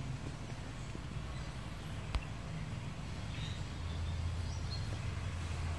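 Background ambience: a steady low hum that grows louder about four seconds in, with one sharp click about two seconds in and a few faint, short high chirps.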